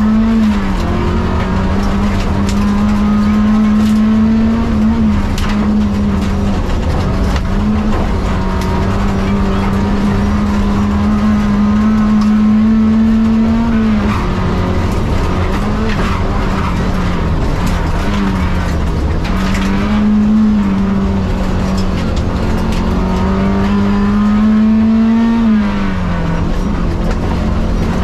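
Renault 18 rally car's engine heard from inside the cabin, held high in the revs at full pace. Its pitch dips briefly and climbs back about six times at gear changes, over a constant rumble of tyres on the dirt road.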